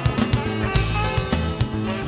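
Background music: a rock track with guitar over a bass line and a steady drum beat.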